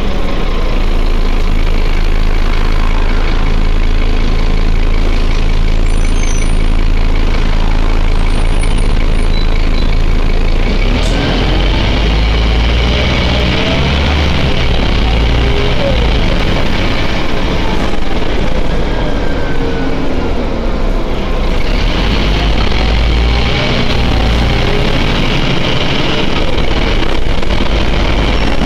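Scania city bus heard from inside the passenger cabin while driving: a steady diesel engine rumble with rattles and road noise. The engine note rises and falls several times, and the low rumble grows heavier from about halfway through.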